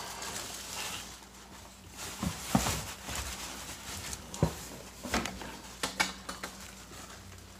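Plastic packaging rustling and crinkling while a wrapped statue is handled, with irregular sharp taps and knocks scattered through.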